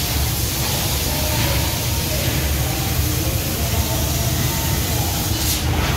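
Prima Platino 1530 4 kW laser cutting machine at work: a steady hiss over a low rumble, with faint short whines at changing pitches.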